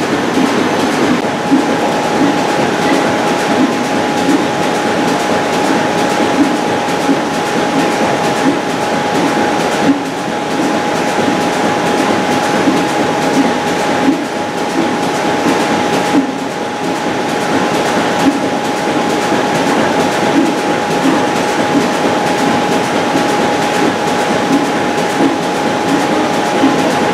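Glass-bulb mercury arc rectifier running, a steady rough rushing buzz with an uneven flutter and a steady high whine that sets in about a second in.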